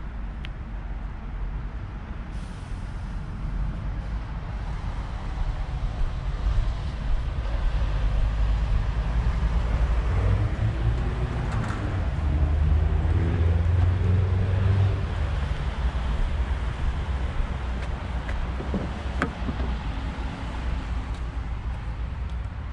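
Traffic noise with a heavy road vehicle's engine going by: a low rumble that swells toward the middle and fades again. A couple of short clicks come near the end.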